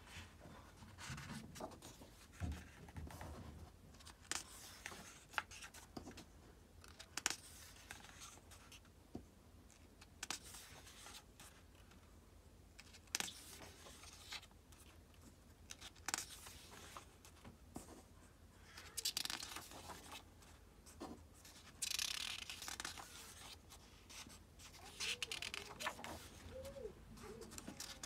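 Pages of a hardcover book turned by hand: paper swishing and rustling in short irregular strokes every few seconds, with fingers brushing over the pages.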